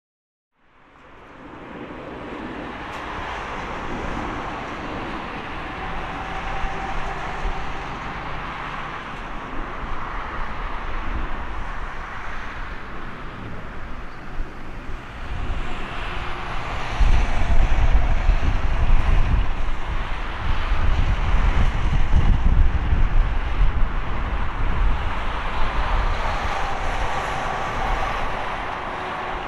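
Airbus A220-300's Pratt & Whitney PW1500G geared turbofans on final approach: a steady jet whine and rush that fades in and grows louder, with a heavy low rumble in the second half as the airliner passes and descends to the runway.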